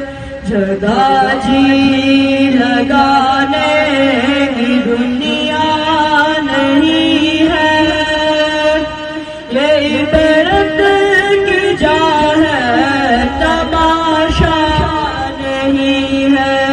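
A boy's voice singing a naat unaccompanied, in a slow, ornamented chanting style with long held notes. He pauses briefly about halfway through, and a steady low drone continues underneath.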